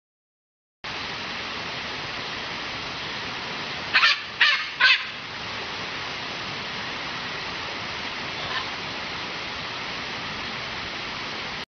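Parrot giving three short, loud squawks in quick succession about four seconds in, and a fainter call later, over a steady hiss.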